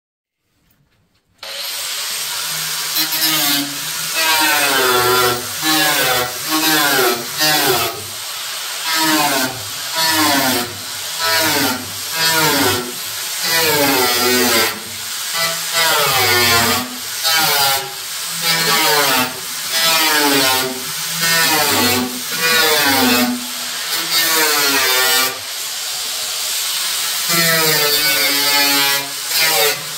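Electric angle grinder with a cut-off disc cutting through old sheet-steel body panel. It starts about a second and a half in, then its pitch drops each time the disc bites into the cut and climbs back as the load eases, about once a second.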